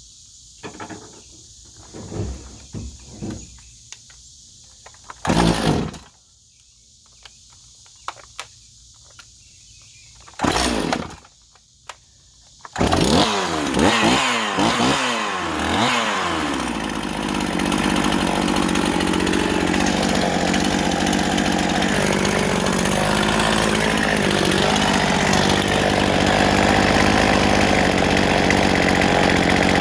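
Two-stroke chainsaw being worked on: a few clicks and two short loud bursts, then about 13 seconds in the engine catches, revs up and down several times, and settles into steady running.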